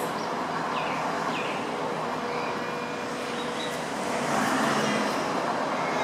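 Steady road traffic noise, swelling as a vehicle passes about four seconds in, with a couple of faint short bird chirps about a second in.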